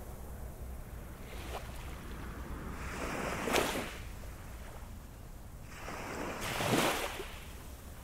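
Ocean waves breaking and washing up on a beach: two surges of surf, the first peaking about three and a half seconds in and the second, loudest, near seven seconds, over a steady low rumble of the sea.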